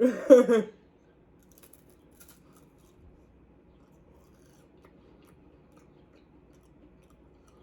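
A brief burst of a person's voice at the very start, then near silence: quiet room tone with a few faint ticks about two seconds in.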